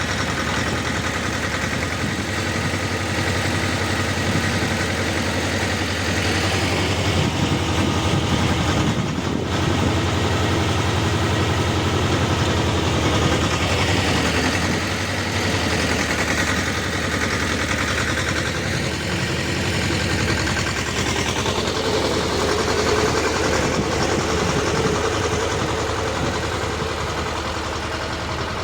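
Motor tiller's engine running steadily as its rotary tines work the soil of a garden bed, the note wavering with the changing load and dipping briefly about nine seconds in.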